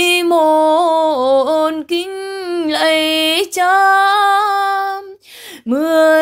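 A woman chanting a Vietnamese Catholic 'ngắm' Passion meditation solo, in long held notes with small wavering turns of pitch, broken by a breath about five seconds in.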